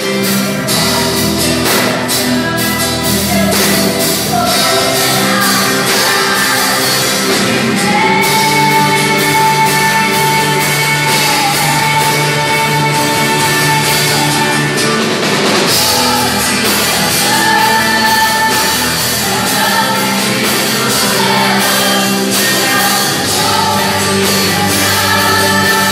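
Live Portuguese-language worship song: several singers on microphones, a woman's voice to the fore, over a band with electric guitars, played loud through a PA in a hall.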